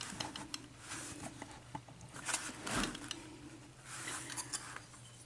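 Faint handling sounds of a brass padlock being set in a vise and tools being picked up: scattered small clicks and rustles, with one louder knock a little before the three-second mark.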